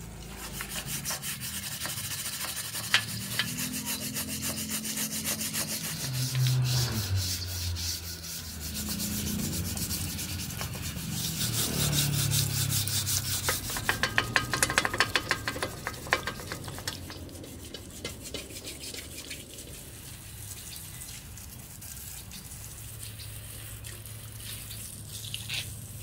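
A stiff brush scrubbing the wet, rusty cast-iron frame of a Singer treadle sewing machine base in fast back-and-forth strokes. The scrubbing is loudest about halfway through and eases off in the last third.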